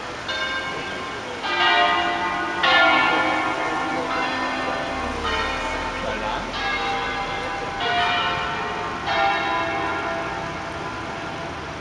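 Church bells of the Basilica of Sant'Anastasia in Verona rung in the Veronese system, a concerto on full-circle swung bells: single bell strokes follow one another about every second and a quarter, each ringing on into the next. After the last stroke, about three-quarters of the way through, the ringing dies away.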